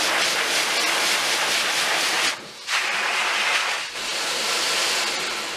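Pet dryer (dog grooming blower) running on high power: a loud, steady rush of air from its hose, with the noise of the air itself louder than the motor. The rush drops out briefly about two seconds in and eases off near the end.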